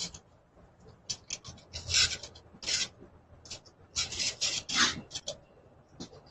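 Irregular short bursts of harsh rasping, scraping noise.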